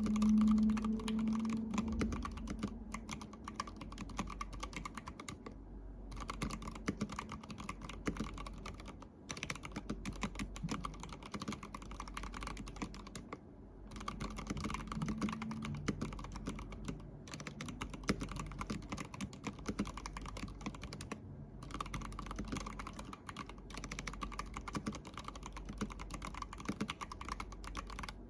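Continuous fast typing on an ABKO Hacker ADK05 acrylic-cased mechanical keyboard with red linear switches, with a few short pauses. A low hum sounds under the first couple of seconds.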